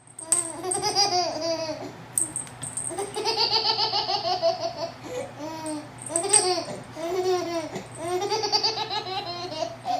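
High-pitched laughter, like a baby's, in long runs of quick rising-and-falling notes with short breaks between runs.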